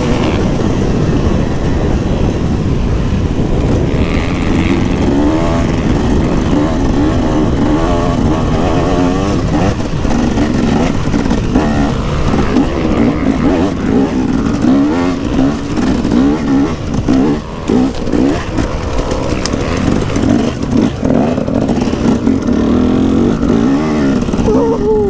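Dirt bike engine running continuously, its pitch rising and falling as the throttle is opened and closed while riding.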